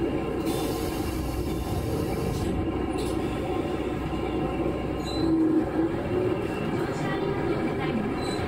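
Running noise of a KiHa 11 diesel railcar on the move, with engine hum and wheels on rail. A little past halfway the low engine hum drops away and a brief louder whine stands out.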